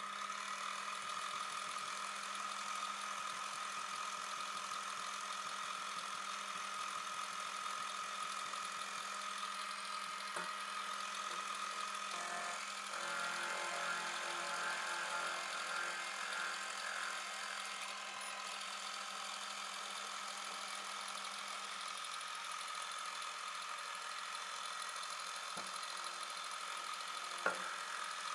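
Milling machine running, its spindle motor giving a steady hum and whine while a face mill skims the top face of a plate clamped to an angle plate; the cutting noise thickens in the middle as the cutter passes over the work, with a couple of light clicks near the end.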